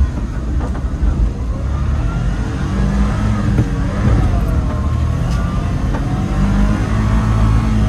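Engine of a tracked kei truck running hard under load, heard from inside the cab. The snow tracks are using up most of the engine's power.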